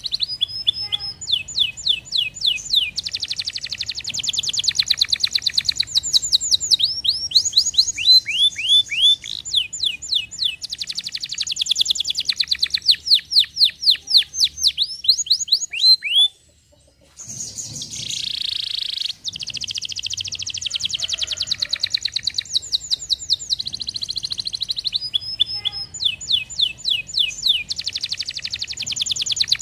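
Domestic canary singing: fast rolls of high, repeated downward-sweeping notes and trills. The song breaks off for under a second just past halfway, then starts again.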